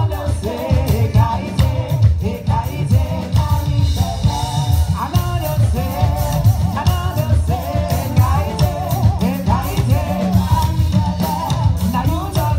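A live band plays with a drum kit, and singers sing over it.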